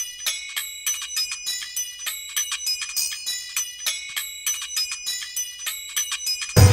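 Background music: an intro of high, bell-like chiming notes in a quick repeating pattern, with a low hit and fuller instruments coming in near the end.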